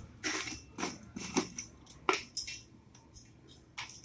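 Kitchen handling noises: a string of irregular short clicks and crunchy rustles from containers and utensils being moved about.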